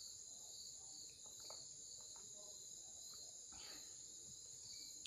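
Near silence with a steady high-pitched insect chorus, like crickets, running underneath. A few faint small sounds come in the first second or two as water is sipped from a glass.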